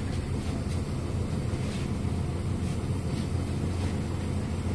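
Inside a MAZ-103 city bus: a steady low drone from the engine and running gear with road noise, and a few faint light rattles.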